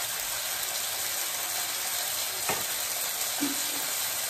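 Marinated chicken pieces sizzling steadily in a hot grill pan, with a short knock about two and a half seconds in.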